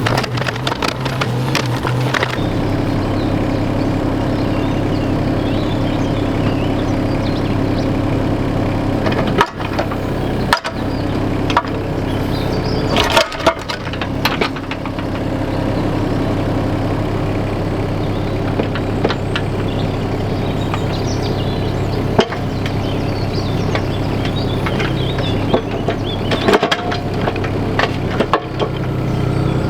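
Small excavator's diesel engine running steadily under load, its note changing slightly about two seconds in, with scattered knocks and cracks as the bucket digs through soil, stones and roots.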